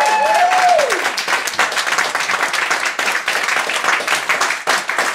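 Theatre audience applauding, with a voiced whoop that rises and falls in pitch in the first second.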